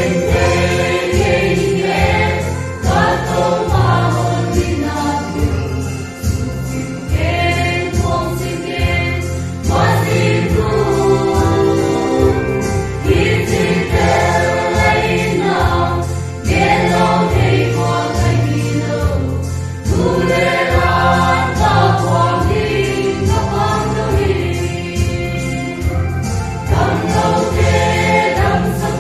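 Mixed choir of men's and women's voices singing a Christian song in harmony, over a low instrumental accompaniment.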